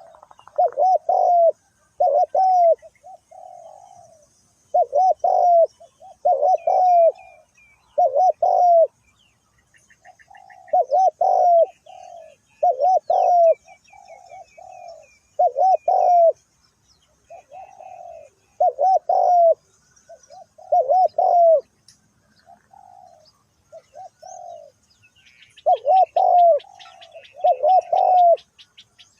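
Spotted dove cooing: a low coo phrase of two or three notes repeated every second or two, with softer coos between. Small birds chirp faintly in the background, and a fast buzzy trill starts near the end.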